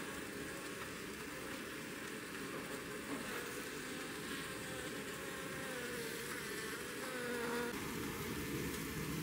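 Japanese honey bee buzzing, its pitch wavering, for several seconds from about three seconds in, over a steady hiss.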